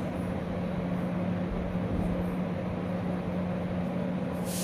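Steady background hum and hiss with a constant low tone.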